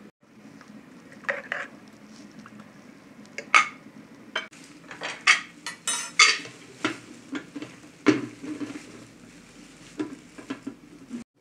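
Metal kitchenware clinking and clanking: a spoon tapping a bowl as spice is added, then an aluminium pressure-cooker lid knocking against the pot as it is handled and fitted on. A dozen or so sharp strikes, one about six seconds in ringing briefly.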